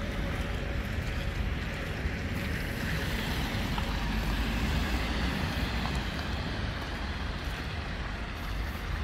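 Street traffic: cars driving past on a wet, slushy road, their tyres hissing. One car passing close swells the sound about four to five seconds in, over a steady low rumble of wind on the microphone.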